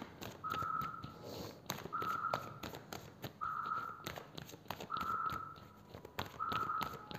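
A single even whistle-like note, repeated about every second and a half and lasting about half a second each time, with faint short clicks between the notes.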